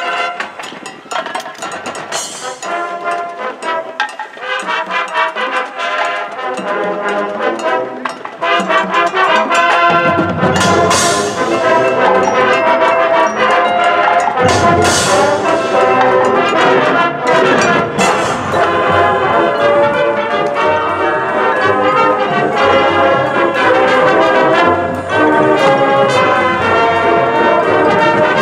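High school marching band playing: a lighter, quieter passage for about the first nine seconds, then the full band with brass comes in loud, punctuated by a few sharp crashes.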